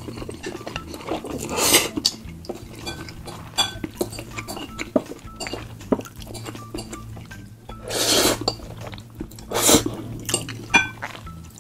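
Close-miked eating of Samyang noodles: loud slurps about 2 s in and twice near the end, between them a fork clinking and scraping on a plate many times.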